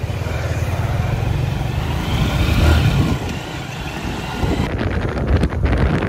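Small motorcycle taxi's engine running under way, heard from the pillion seat, with wind rushing over the microphone; the wind turns choppy and buffeting over the last second or so.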